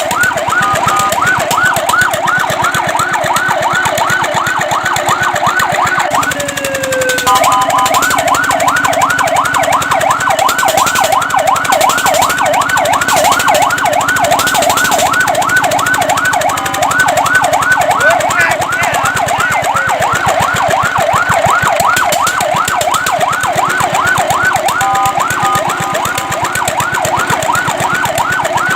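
Fire truck's electronic siren in a fast yelp, a rapid rising-and-falling wail repeated several times a second. About six seconds in it breaks off briefly into one slower falling tone, then the fast yelp resumes.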